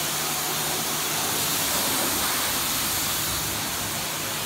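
Pressure-washer wand spraying water onto a tractor's rubber tires: a steady hiss of spray that holds an even level throughout.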